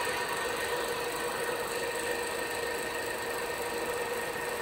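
TOS FA4V vertical milling machine's spindle running free at 500 rpm with no cut being taken. A steady, even mechanical hum with a few constant tones.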